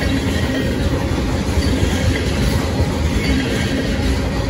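Tank cars of a freight train rolling past at track speed: a loud, steady rumble of steel wheels on rail.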